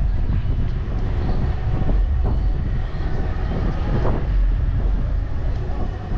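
Wind buffeting the camera's microphone in uneven gusts, a heavy low rumble, with faint outdoor bustle beneath it.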